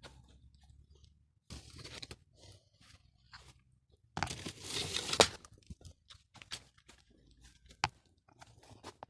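Crunching, rustling handling noise in two bursts, the louder one about four seconds in, followed by scattered small clicks and knocks.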